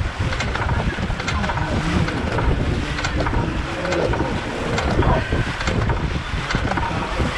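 Dragon boat paddles striking the water in a steady rhythm of synchronized strokes, over water rushing along the hull and wind buffeting the microphone.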